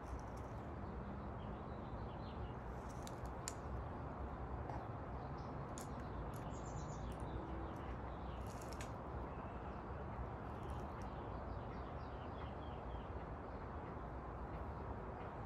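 Quiet garden ambience: a steady low background hum with faint bird chirps now and then. A few light clicks and taps come from art supplies being handled.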